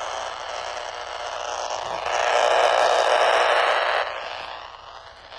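Handheld radio's speaker giving out harsh static from power-line interference generated by failing, arcing lightning arresters. The static swells louder about two seconds in, then drops suddenly about four seconds in.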